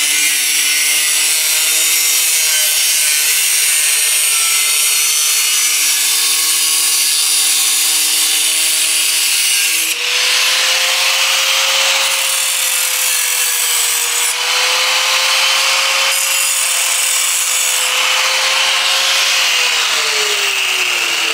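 Angle grinder running and cutting into sheet steel: a steady high whine over a loud grinding hiss. The grinding grows harsher about halfway through, and the whine drops in pitch near the end.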